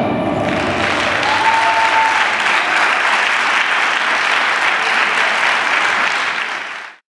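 Theatre audience applauding after the music stops, clapping steadily and then fading out just before the end.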